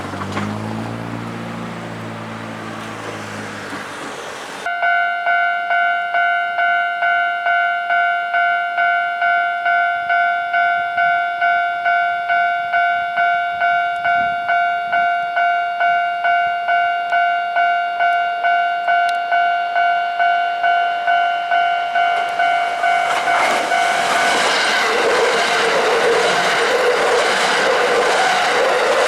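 An electronic Japanese level-crossing warning bell starts about five seconds in and dings steadily about twice a second. Near the end a Kintetsu Nara Line electric train runs over the crossing, and the loud rush of its wheels and motors swamps the bell.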